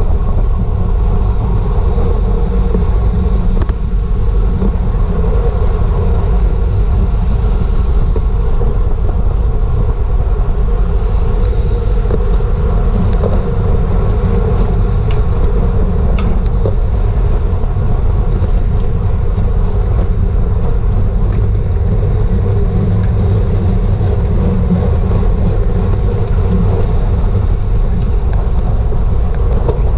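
Wind rushing over a bicycle-mounted action camera's microphone at race speed: a loud, steady rush with a deep rumble and a few faint clicks.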